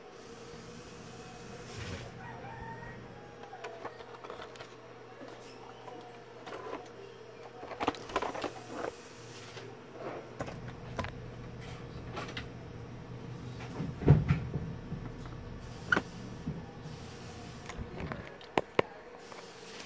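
Handling and soldering on a TV power-supply circuit board: scattered clicks and taps as the board is turned and the soldering iron touches the pads, with one louder knock about two-thirds of the way through and a few sharp clicks near the end, over a steady low hum.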